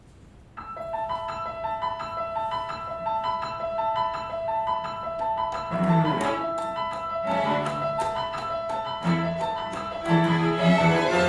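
String quartet (violins, viola, cello) and piano playing. After a brief silence it opens with a quick repeating high figure over one held note. Lower parts come in about halfway through, and the ensemble grows louder and fuller near the end.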